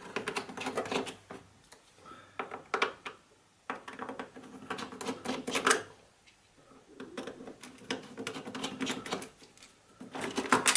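Clusters of sharp clicks, taps and rattles of metal and plastic parts, in several bursts with short pauses: a cooker hood's cover and control box being taken apart by hand.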